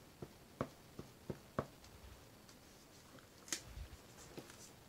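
Gloved fingers tapping and handling a cardboard tablet box and its paper card: a run of light taps and clicks in the first second and a half, then a sharper click and a soft low bump about three and a half seconds in as the box is turned.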